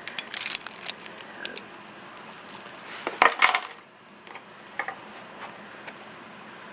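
A ring of metal keys jingling and clinking as it is handled, with a short louder jangle about three seconds in and a few light clicks after.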